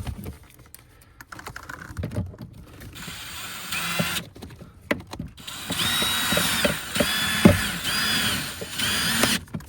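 Cordless drill-driver running a screw in, in about five short runs in the second half, with a few clicks of handling before it.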